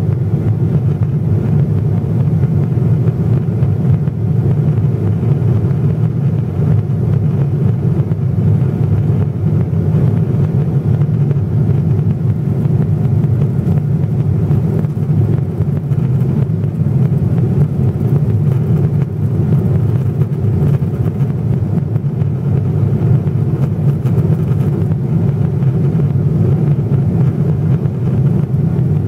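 Steady low roar of a Boeing 777-300ER's cabin in the climb through about 25,000 ft: airflow over the fuselage mixed with the hum of its GE90-115B engines at climb power, unchanging throughout.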